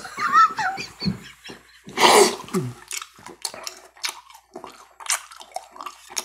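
Close-miked chewing mouth sounds, with many short wet clicks and smacks. About two seconds in there is a louder breathy burst with a falling hum.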